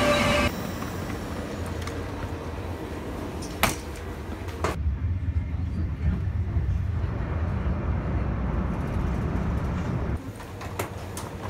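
Passenger train running, heard from inside the carriage as a steady low rumble. Just after the start, the louder noise of a train passing alongside cuts off abruptly, and a single sharp click comes a few seconds in.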